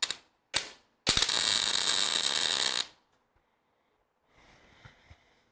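Two short metallic clicks, then a MIG welder striking an arc and making a tack weld on the steel bumper for about two seconds, a steady crackling buzz that cuts off sharply; the tack doesn't hold.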